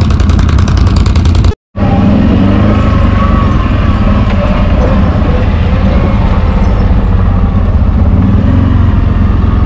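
CFMoto X8 ATV's V-twin engine running steadily as it rides a dirt forest trail. The sound cuts out for a moment about one and a half seconds in, then the engine carries on.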